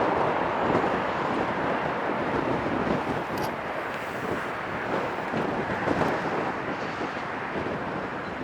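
Strong wind buffeting the microphone over the rumble of a passing express train that slowly fades away.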